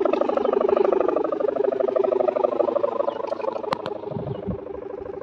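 The 4.5 m sendaren (hummer bow) on a giant Banyuwangi ram-raman kite droning in the wind: a loud buzzing hum with a fast, even pulse and a slightly sagging pitch. It fades over the last second or two, with two sharp clicks about three and a half seconds in.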